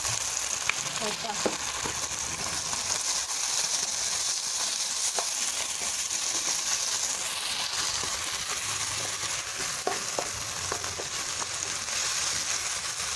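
Chopped tomatoes, green bell pepper and onion sizzling steadily in hot oil in a non-stick pan as they are stirred with a spatula. A few light taps of the spatula on the pan.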